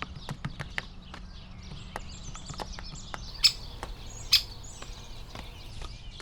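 Great spotted woodpecker hammering a nut wedged in its anvil hole: a string of irregular sharp knocks of beak on shell and wood, with the two loudest about a second apart in the middle. Small birds chirp in the background.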